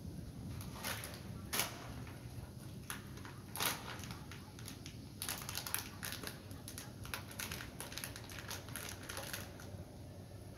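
Plastic snack wrapper crinkling and crackling irregularly as it is handled in the hands, with a couple of louder sharp crackles in the first four seconds.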